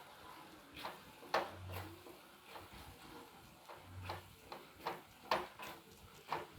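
A spoon knocking and clinking against a bowl, about ten irregular taps, while the leftover batter is stirred together with a little water.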